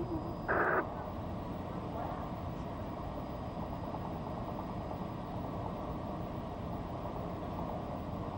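Amateur radio channel static: a steady hiss between transmissions, with a short burst of sound about half a second in.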